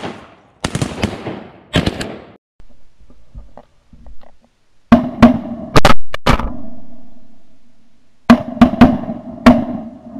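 A quick volley of shotgun blasts from several guns. Then two clusters of sharp, booming hits a few seconds apart, each ringing on and fading over a couple of seconds.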